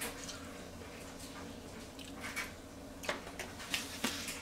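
Quiet chewing of a mouthful and light handling of a fork and paper plate, with a few soft clicks and taps over a low steady hum, most of them in the second half as the plate is set down.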